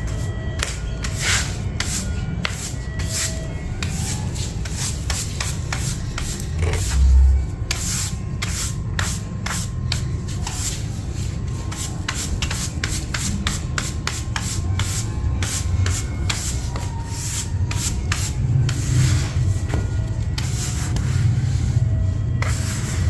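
Rubbing or scrubbing strokes, many short ones in quick irregular succession, over a steady low hum, with a dull thump about seven seconds in.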